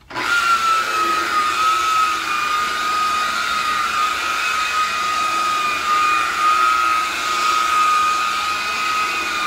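DeWalt electric rotary buffer spinning a foam pad against a painted motorcycle fuel tank, polishing the paint with black polish. It switches on abruptly and runs with a steady high whine that settles slightly lower in pitch within the first second as the pad takes up the load.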